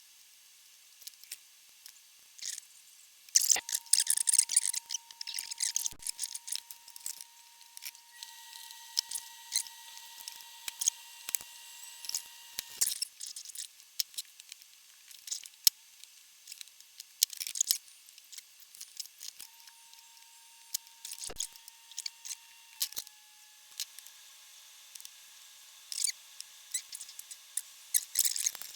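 Scattered small clicks, snips and crackles of hand tools at work on a valve amplifier chassis during recapping. A faint steady high whine sounds for stretches, starting about three seconds in and again in the later part.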